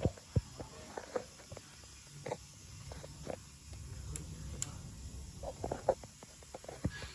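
Handling noise from the head of a powder fire extinguisher: scattered light clicks, taps and rubbing as a hand handles its plastic squeeze lever and handle. The clicks come at irregular intervals, with a cluster near the start and another about three-quarters of the way through.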